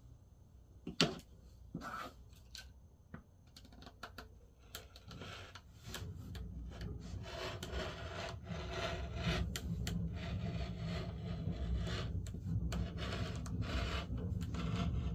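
A rotary cutter rolling through white fabric: a continuous rough, rasping cut that sets in about six seconds in and grows louder toward the end. Before it come a few light taps and rustles as the fabric is handled and smoothed.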